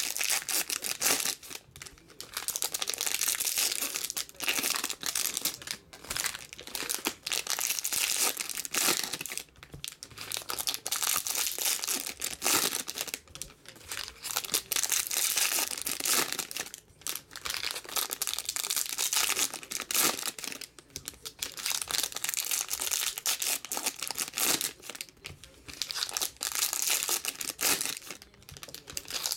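Foil trading-card pack wrappers being torn open and crumpled by hand, with the cards slid out. The crinkling and ripping comes in bouts of a few seconds, with short pauses between packs.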